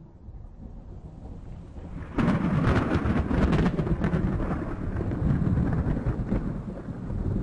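Thunder: a low rumble builds for about two seconds, then breaks into a loud, sharp crackling clap, and a long rolling rumble follows.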